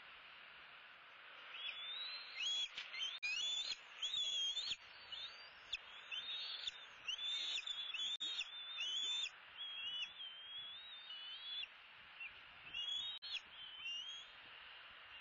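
Bald eagles calling: a long series of high, thin, chittering whistles that rise and fall in pitch, starting about a second and a half in and fading near the end, over a steady hiss.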